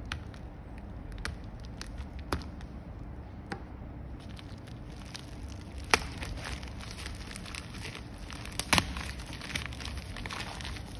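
Bubble-lined plastic mailer bag being crinkled and torn open by hand: scattered crackles and rustling, busier in the second half, with a few sharp snaps, the loudest about 6 and 9 seconds in.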